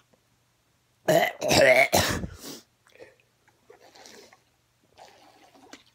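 A man gagging and clearing his throat hard for about a second and a half, a loud voiced heave, from a mouthful of sand mixed with calcium powder. It is followed by faint gulps as he drinks water from a bottle.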